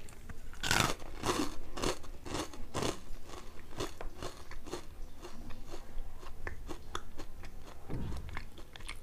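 Someone biting into and chewing Kellogg's Chocos Fills, crunchy wafer-shelled cereal pillows with a chocolate filling. A run of crisp crunches is loudest over the first three seconds, then turns into lighter, quicker chewing crackles.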